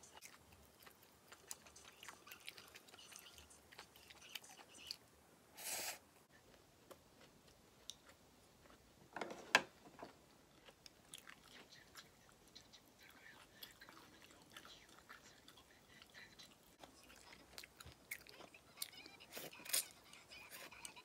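Faint eating sounds: chewing, with small clicks of wooden chopsticks against a ceramic plate. A short hiss comes about six seconds in, and a louder knock about nine and a half seconds in.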